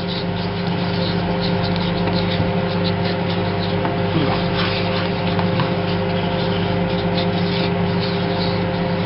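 Microwave oven running with a steady electric hum, with light scraping of a spoon stirring sugar syrup in a pan.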